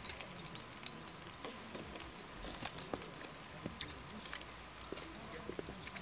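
Metal chopsticks clicking and tapping lightly against a metal plate of grilled meat, in scattered faint clicks over a low hiss.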